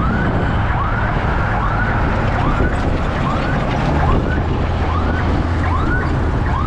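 Short rising siren-like whoops, repeating about every 0.7 s, over a steady low vehicle rumble.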